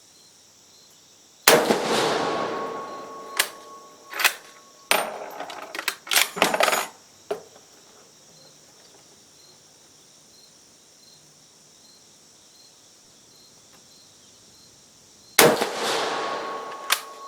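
Two rifle shots from a Carcano M91 TS carbine, about fourteen seconds apart, each echoing and dying away over about two seconds. After the first shot come a run of metallic clicks and clacks from the bolt being worked to eject the case and chamber the next round. Crickets or other insects chirp steadily and faintly throughout.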